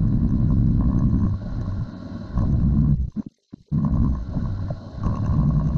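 Metal lathe running, turning the heads of steel parts down to size: a steady low machine rumble that cuts out suddenly for about half a second near the middle.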